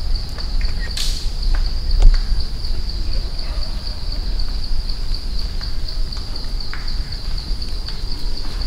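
Insects calling in a steady high-pitched chorus with a fast, even pulse, over a low rumble; a sharp click about a second in.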